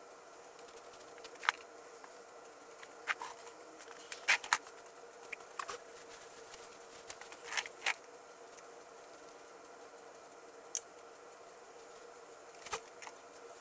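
Scattered light clicks and taps, about nine at uneven intervals, from handling things at a workbench, over a steady low electrical hum.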